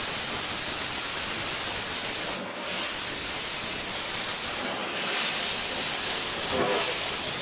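Beyer Peacock steam locomotive venting steam from its open cylinder drain cocks: a loud, steady hiss that dips briefly twice.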